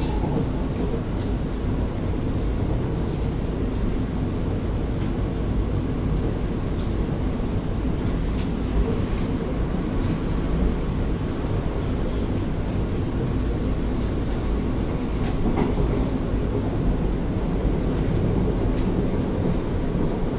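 Alstom R151 metro train running, heard from inside the passenger cabin: a steady rumble of wheels and running gear, with occasional clicks.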